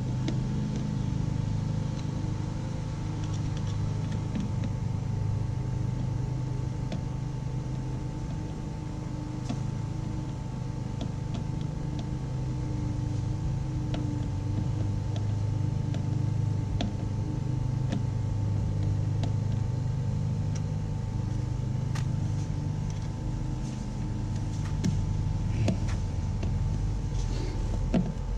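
Steady low mechanical hum with a thin steady tone above it, and a few light clicks and taps.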